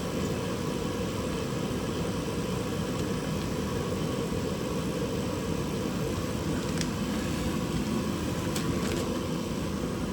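Steady mechanical drone of a running machine, with a few faint clicks about seven seconds in and again near nine seconds.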